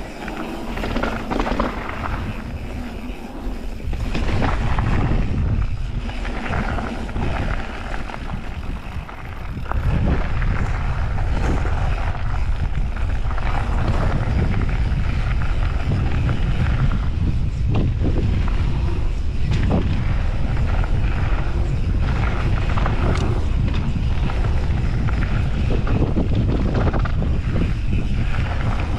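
Wind buffeting the microphone of a camera on a mountain bike rolling downhill, mixed with the tyres crunching over gravel and the bike rattling over bumps. The wind rumble gets louder about ten seconds in as the bike picks up speed and stays strong.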